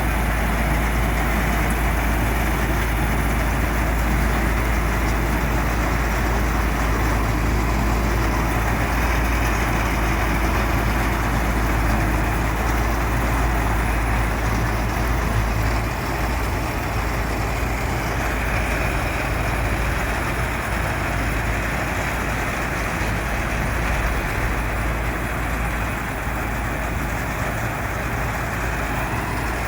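Wheat combine harvester running steadily while harvesting, a continuous low engine rumble under an even machine roar; it becomes slightly quieter about halfway through.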